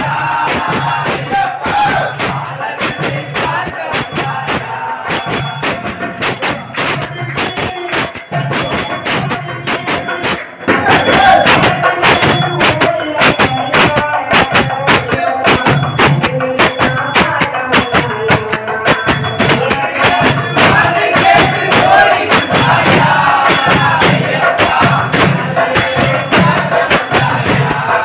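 Devotional Ayyappan bhajan: a lead singer on a microphone with a group of men singing along, over a steady beat of jingling percussion and a hand drum. It gets louder about ten seconds in.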